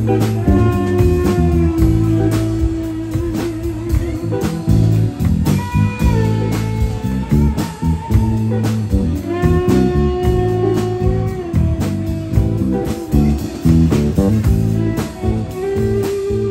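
Live rock band playing an instrumental: an electric guitar leads with long held notes, some with vibrato, over bass guitar and a drum kit.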